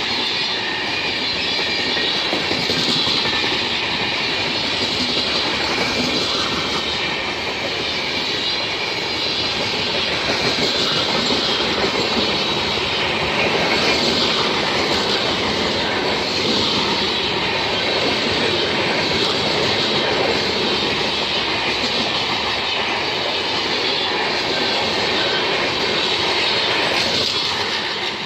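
Passenger train of LHB coaches passing close by, its wheels clattering over rail joints with some squeal of steel wheels on rail, in a steady loud rumble.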